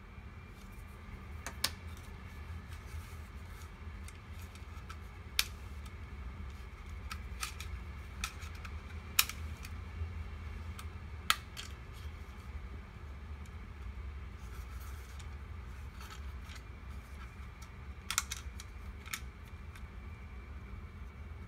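Hard plastic clicks and taps from a dashboard camera's body, battery and battery cover being handled. There are several sharp single clicks at irregular intervals over a steady low hum.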